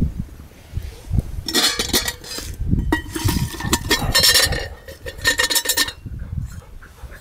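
An enamelled metal pot lid scraping and clinking against the pot's rim as it is handled and lifted off, in three short stretches with a light metallic ring.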